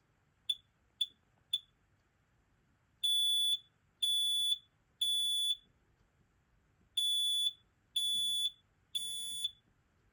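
FireX FADCM smoke alarm sounding from its test button. Three short chirps about half a second apart, then a shrill horn beeping in the three-beep temporal pattern: three long beeps a second apart, a pause, and three more, the last one a little quieter.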